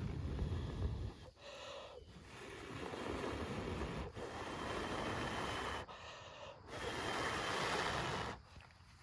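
A person blowing in long, hard breaths: three stretches of breathy hiss with short pauses between.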